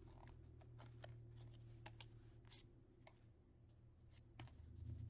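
Near silence: faint scattered ticks and slides of trading cards being flipped through by hand, over a low steady hum.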